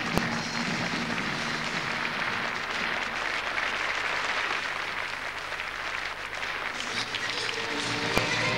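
Audience applauding, with music fading out under it at the start and new music coming in near the end.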